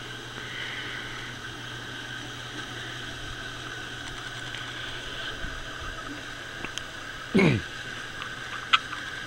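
Steady room hum and hiss. About seven seconds in, one short voice-like sound falls steeply in pitch, and a light click follows near the end.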